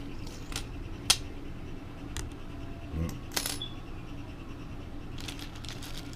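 Small metal hand tools and hardware clinking and clicking as they are rummaged through by hand in a search for an Allen wrench. The clicks are light and scattered, with the sharpest about a second in and a quick run of them near the end, over a steady low hum.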